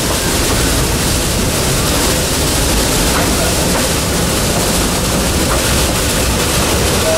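Steady rumbling and rushing noise of an open passenger car rolling along behind a narrow-gauge steam locomotive.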